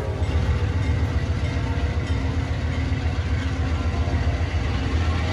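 Diesel-electric locomotive hauling a push-pull commuter train, its engine running with a steady low rumble as the train pulls away along the track.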